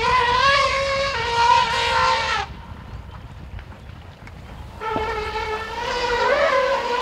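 Asian elephants trumpeting in play: two long, high trumpet calls of about two and a half seconds each, the second starting about five seconds in.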